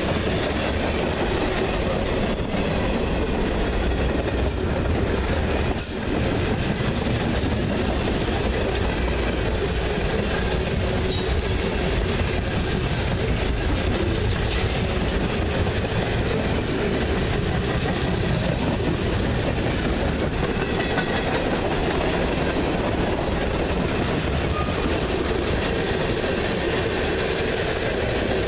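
CSX freight train cars (tank cars, covered hoppers and refrigerated boxcars) rolling past close by at speed: a steady, loud rolling noise of steel wheels on rail.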